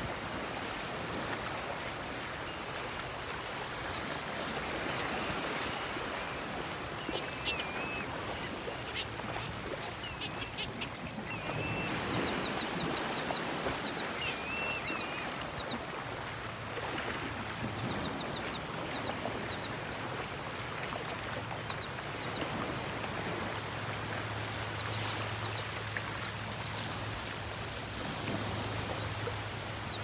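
A resting seabird flock of gulls, terns and black skimmers calling: quick series of short high notes and a few wavering calls, over a steady wash of surf and wind.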